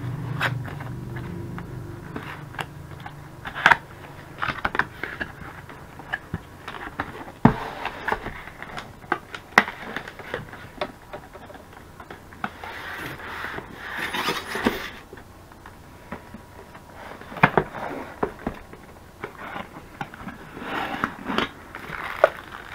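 A Yeti microphone's cardboard packaging is handled and opened by hand, giving irregular taps, clicks and scrapes. There is a stretch of rustling about halfway through, and plastic wrap crinkles near the end.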